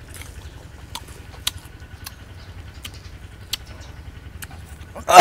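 Sparse crisp clicks of chewing and handling star gooseberries dipped in salt and chili, over a faint low rumble. A loud vocal outburst starts at the very end.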